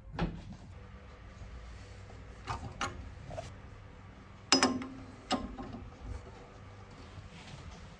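A few light knocks and metallic clinks as a metal cutter attachment is handled and fitted onto the spindle of a cobbler's finishing machine. The loudest clink, with a brief ring, comes about four and a half seconds in, and a sharper tap follows a moment later.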